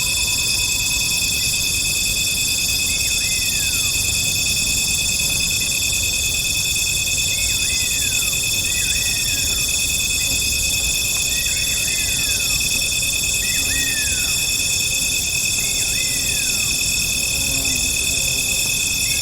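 Tropical jungle at night: a dense, steady chorus of insects trilling at several high pitches, with a short call that drops in pitch repeated every few seconds, sometimes two close together.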